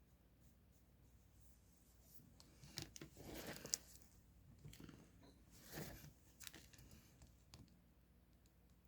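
Handling paper and stationery while decorating a journal: a few short bursts of rustling and tearing with a sharp click, starting about three seconds in after a near-silent opening.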